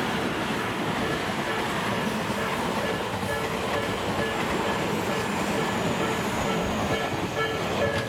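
Tobu Railway electric commuter train passing over a level crossing, with steady wheel-on-rail rumble and clickety-clack. Under it the crossing's alarm dings over and over, a few times a second, and grows clearer near the end as the train clears.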